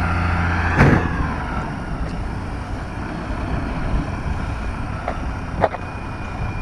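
Grass mower's engine running steadily as it cuts, with a sharp knock about a second in and two short high squeaks near the end.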